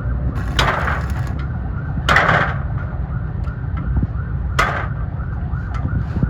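Arc welding on a broken engine-mount bolt stub to draw it out of the engine block: a steady low hum from the welding machine, broken three times by short bursts of hissing arc crackle.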